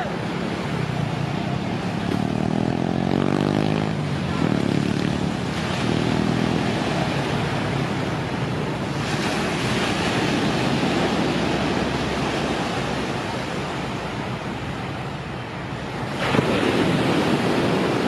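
Surf washing onto a sandy beach, with wind on the microphone. The waves swell louder about nine seconds in and again near the end.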